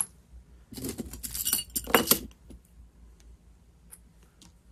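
Small metal military insignia pins and dog tags with their chain clinking and jangling as they are handled and sorted, a busy burst about a second in that peaks around two seconds, then a few faint ticks.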